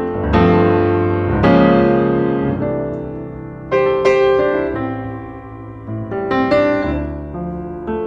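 Slow background piano music: chords struck every second or two, each left to ring and fade.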